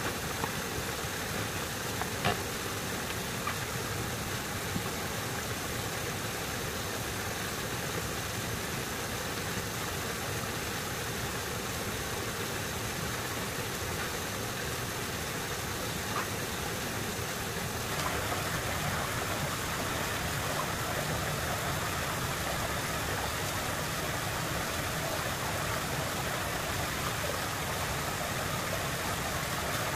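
A small engine running steadily, a little louder and brighter from about eighteen seconds in, with a few faint knocks near the start.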